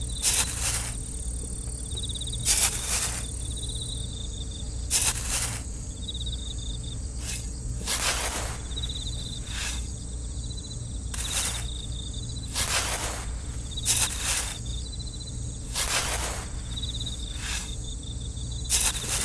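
Small metal trowel scraping and scooping sand, a short gritty scrape about every second. Behind it, a cricket chirps in short repeated trills.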